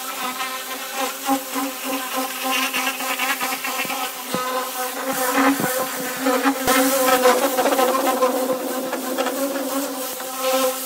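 Pressure washer running with a steady buzzing hum, its water jet hissing against a car's bare steel floor pan and blasting off chemically softened paint. The spray hiss grows louder through the middle.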